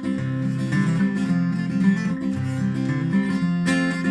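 Acoustic guitar strumming chords as an instrumental break in a sing-along song.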